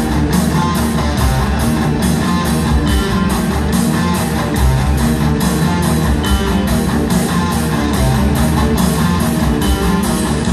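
Rock band playing live in an arena, heard from the crowd through the venue's PA: loud guitars over a steady drum beat of about three hits a second.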